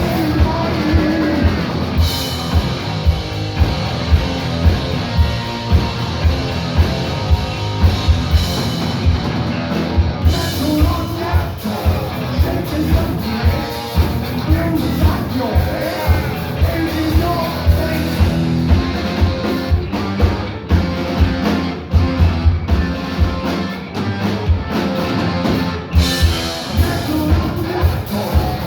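Heavy metal band playing live: distorted electric guitars, bass and drum kit with a steady beat, and a singing voice over them.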